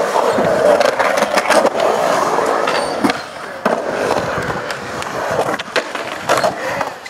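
Skateboard wheels rolling on a smooth concrete bowl, a steady rumble that swells and fades as the board carves the walls. It is broken by several sharp clacks from the board and trucks.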